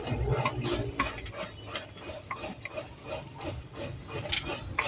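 Irregular light metallic clicks and taps from hand work at a diesel engine's fuel filter while its air is being bled out.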